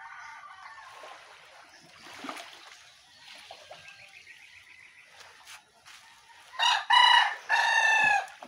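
A rooster crowing: one loud crow near the end, broken into about three parts, with a fainter call at the start.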